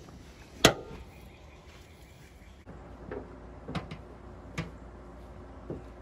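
A single sharp plastic click a little under a second in, then a few lighter knocks spaced about half a second to a second apart: a van door-panel keeper clip being worked loose with pliers, and plastic door trim being handled.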